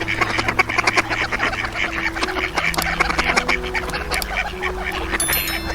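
A flock of ducks quacking, many short calls overlapping in a fast, continuous chatter.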